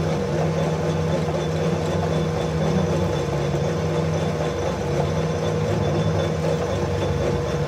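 Metal lathe running steadily with its large four-jaw chuck spinning, a constant machine hum.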